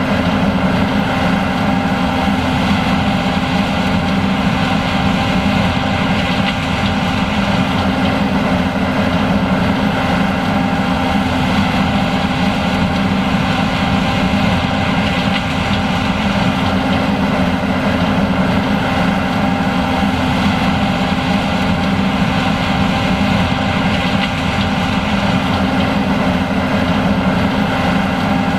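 John Deere S780 combine harvester running steadily under load while harvesting corn: a constant heavy engine and machinery hum with several held tones and no change in speed.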